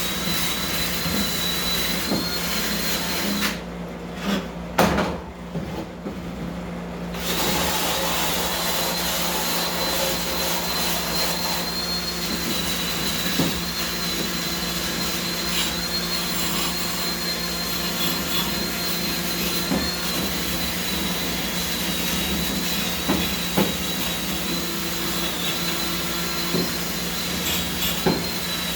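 Battery-powered hand tool running steadily, taking loose surface rust off a steel hood hinge to prepare it for paint. It stops for about three seconds a few seconds in, with a single knock in the pause, then runs on.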